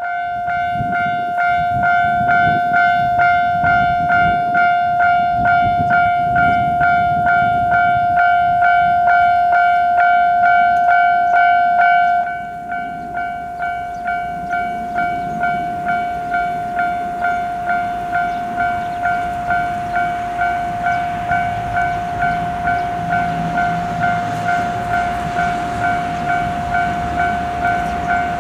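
Japanese level-crossing warning bell ringing "kan-kan" in an even rhythm, about one and a half strokes a second, over the rumble of a passing train. About twelve seconds in, the level drops suddenly and the rumble stops, while the bell keeps ringing.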